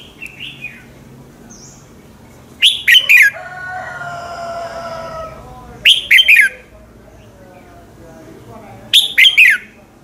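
Red-whiskered bulbul singing: three short, loud phrases of quick whistled notes, each falling in pitch, about three seconds apart, with a softer, lower warble after the first.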